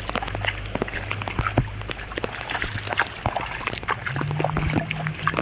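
Shallow rainwater splashing and sloshing, with many small sharp splashes. A low steady hum runs underneath, and a slightly higher steady hum comes in about four seconds in.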